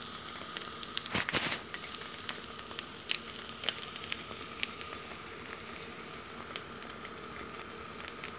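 Egg in the hole, olive-oil-soaked bread with an egg, frying in a nonstick pan: a steady sizzle with scattered crackling pops, and one louder rush about a second in.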